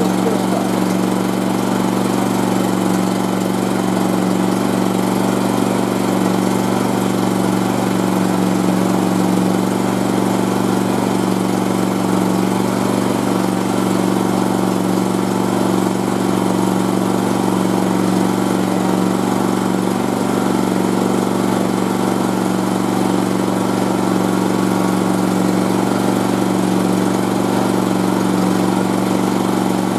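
A Champion 9000 tri-fuel inverter generator running on natural gas and an older Honda 5200 gasoline generator running side by side in economy mode: a loud, steady engine hum that holds one pitch throughout.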